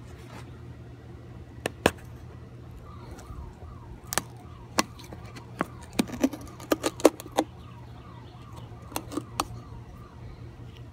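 Sharp clicks and snaps of a plastic 5-quart motor oil jug being popped open with a pocket knife, a quick cluster of them about halfway through.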